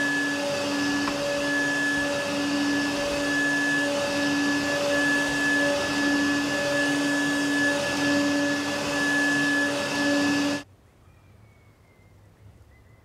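Upright vacuum cleaner running with a steady whine, its low hum wavering in a regular pulse about once a second. It cuts off abruptly about ten and a half seconds in, leaving faint outdoor quiet with a small chirp.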